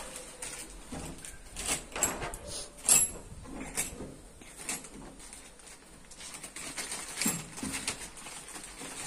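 Crinkling of a clear plastic parts bag, with irregular small clicks and knocks as parts are handled. One sharp click, about three seconds in, is the loudest.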